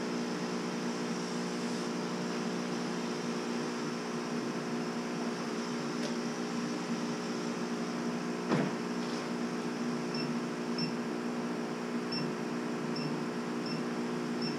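Steady hum of a Chinese CO2 laser cutter's equipment running, its exhaust fan among it. One sharp knock comes about eight and a half seconds in. Near the end there is a string of short high beeps from the cutter's control panel as its keys are pressed.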